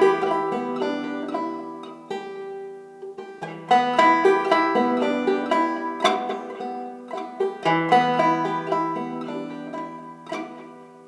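Background music: a plucked banjo tune, picked in phrases of clear notes that fade between them.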